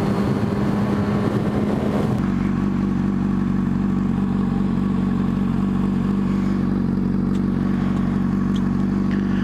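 Motorcycle engine with rushing wind noise as the bike rolls to a stop; about two seconds in the wind noise falls away and the engine settles into a steady idle while stopped at a red light.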